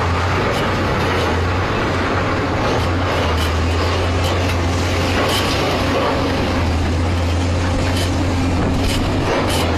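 Excavator's diesel engine running steadily with a strong low hum, under a scatter of short sharp clicks.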